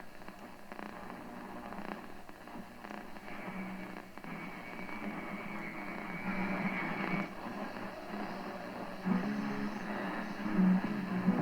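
Mid-1930s Remington Model 250 tube radio being tuned across the AM dial between stations: static and hiss with a steady high whistle for a few seconds, then music from a station coming in and getting louder from about nine seconds in.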